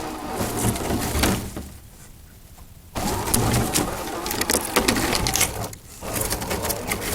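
RC rock crawler running over rough ground, with the motor and drivetrain rumbling and a lot of crackling and crunching, heard through an on-board camera microphone. About two seconds in, it goes much quieter for roughly a second, then comes back.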